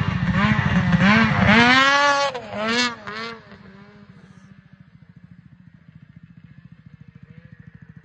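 Snowmobile engine revving hard as the sled accelerates past, its pitch swooping up and down. After about three and a half seconds it drops suddenly to a much quieter, steady drone as the sled speeds away.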